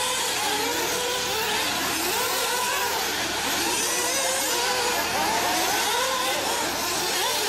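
Several 1/8-scale nitro off-road buggies' small two-stroke glow engines racing together. Each engine revs up and drops back over and over, and their rising and falling whines overlap.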